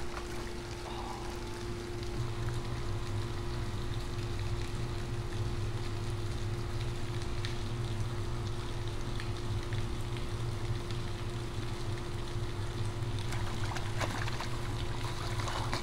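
A steady low mechanical hum over a constant wash of running water, unchanging throughout.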